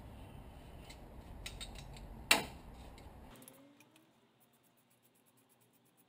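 Hand tools working on a car engine: scattered clicks of metal on metal, with one sharp metallic clank a little over two seconds in. The background rumble cuts off suddenly soon after, leaving faint, rapid, evenly spaced clicking.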